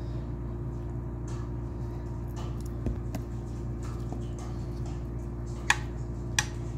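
Barbecue sauce being brushed over raw pork chops in a glass baking dish: faint wet dabbing, then two sharp clicks near the end, over a steady low hum.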